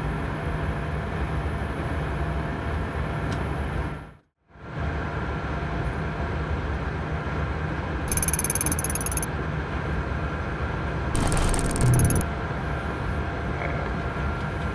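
Steady flight-deck noise of a Boeing 777-200ER in the climb: airflow and engine drone with a few faint steady tones. It cuts out briefly about four seconds in, and there are two short bursts of mechanical clatter about eight and eleven seconds in.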